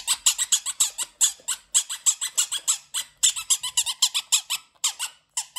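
Rapid rubbery squeaks, about six a second, as light-up spiky rubber balls are squeezed and rubbed in the hands, with short pauses twice.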